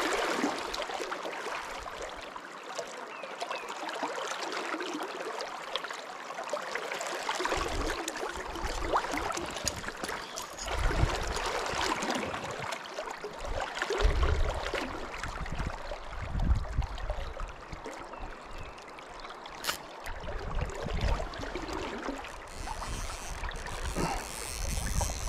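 Steady rush of river current flowing around the wading angler, with irregular low rumbles coming and going from about a third of the way in.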